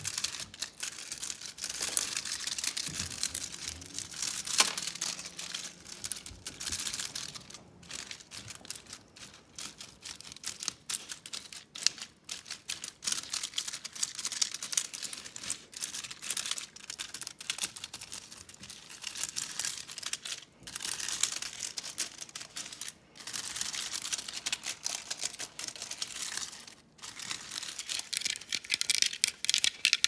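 Fast, dense tapping on Christmas decorations close to the microphone, a rapid run of sharp clicks and taps with a few brief pauses. There is crinkling mixed in during the first few seconds.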